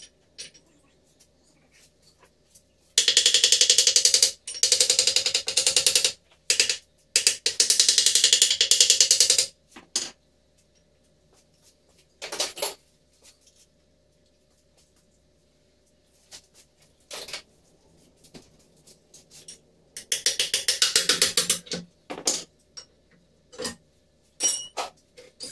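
Pneumatic wrench hammering in loud bursts of a second or two, several times over, undoing bolts while a backhoe loader's transmission is dismantled.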